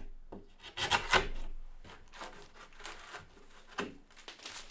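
Wood chisel chopping and paring out a lock mortise in a softwood door stile: a few sharp cutting knocks about a second in, then quieter scraping cuts as the waste is cleaned out.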